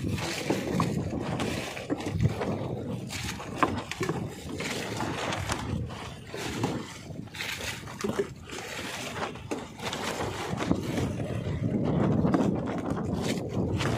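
Sea water sloshing and slapping against a wooden outrigger boat's hull, with scattered knocks and clicks.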